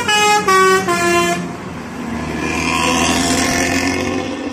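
A bus's multi-tone 'telolet' horn plays a short tune of stepped notes that ends about a second and a half in. Then comes the bus's diesel engine and exhaust as it pulls away, swelling and fading.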